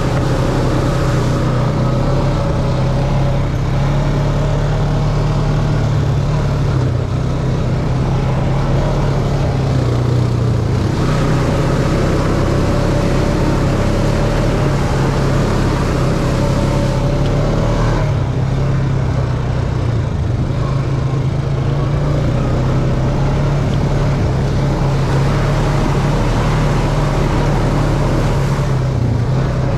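ATV engine running steadily while riding, with wind noise and the splash and hiss of tyres through water and mud on a wet dirt track.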